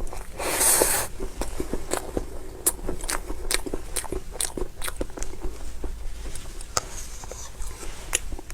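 Close-miked eating of mousse cake: a louder burst of noise about half a second in, then a long run of small wet mouth clicks and smacks from chewing.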